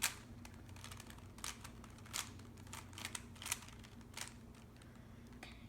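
Plastic Rubik's Cube layers being turned by hand: a string of faint, irregular clicks as the faces snap round.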